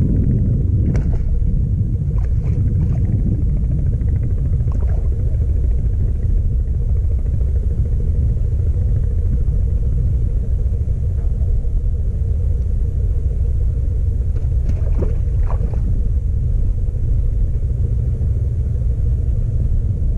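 Loud, steady low rumble of wind buffeting the microphone, with a few faint brief ticks.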